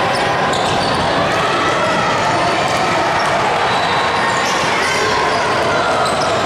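Sounds of a basketball game: a basketball bouncing on the court under a steady hubbub of many spectators' voices.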